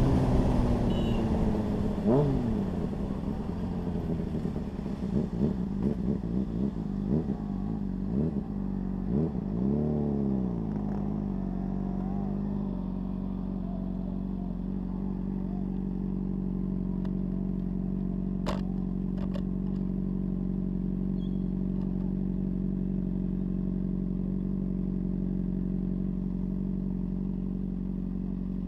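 Honda CBR600RR's inline-four engine slowing down, its revs rising and falling several times, then settling into a steady idle with the bike stopped. A couple of faint clicks come about midway.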